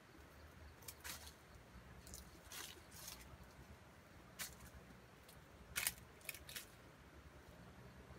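Faint, scattered dry-leaf crackles and rustles, about nine short ones with the loudest near six seconds in, from a rooster's feet as it walks through leaf litter.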